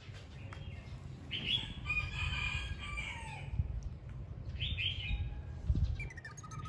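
A rooster crowing: one long crow that falls in pitch at its end, then a shorter call a couple of seconds later, over a low background rumble.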